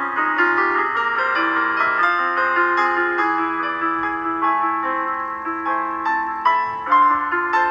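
Instrumental background music led by piano, a steady flow of single notes and chords.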